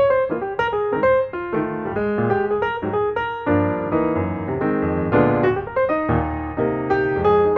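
Background piano music: a quick run of notes over sustained chords.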